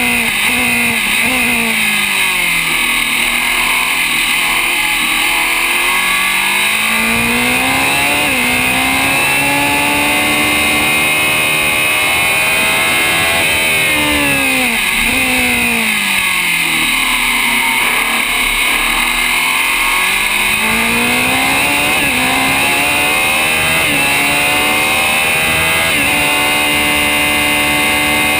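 Open-wheel racing car's engine heard from on board at full racing speed. Its revs fall twice, near the start and about halfway through, as the car slows for corners, and climb back up in steps through the gears after each fall.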